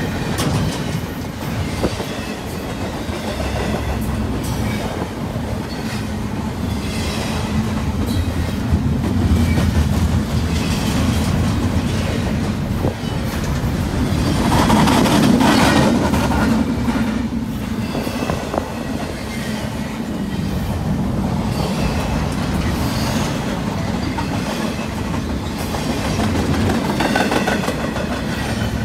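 Union Pacific intermodal freight train of double-stack container well cars rolling past at close range: a steady rumble of steel wheels on rail with rhythmic clickety-clack over the rail joints, swelling louder about halfway through.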